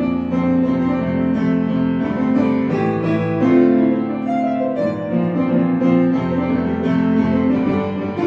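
Piano music: a steady run of held notes and chords.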